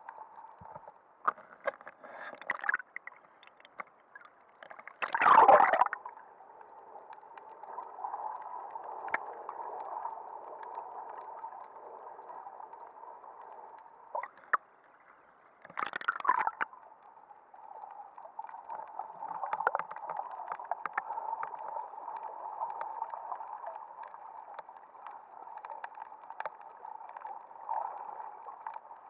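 Muffled water noise heard underwater, with two louder rushes of water or bubbles, about five seconds in and again about sixteen seconds in, and scattered small clicks.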